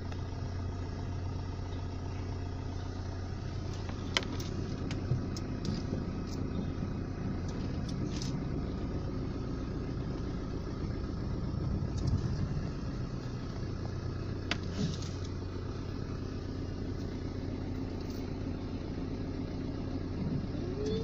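Car engine running at low revs, heard from inside the cabin: a steady low hum, with a few short clicks now and then.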